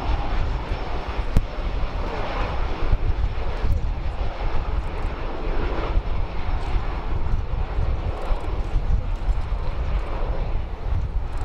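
Boeing 737-800 airliner on final approach with its landing gear down, its twin jet engines making a steady rumbling roar.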